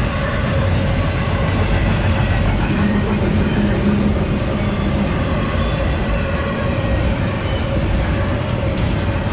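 Freight train of empty intermodal well cars rolling past, a steady continuous rumble of wheels on the rails. A low hum stands out for a couple of seconds near the middle.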